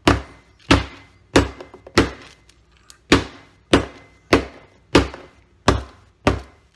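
A metal meat-tenderizer mallet pounding lemongrass stalks in a plastic bag on a plastic cutting board, bruising them: about ten sharp whacks, roughly one and a half a second, with a short pause a little past two seconds in.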